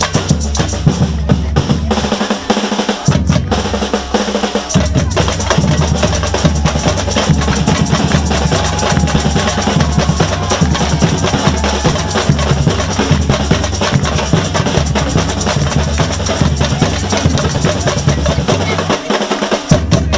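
Samba-style street percussion band playing: big surdo bass drums beat a steady rhythm under snare drums and other hand percussion. The deep bass drums drop out briefly a couple of times, about two seconds in and near the end.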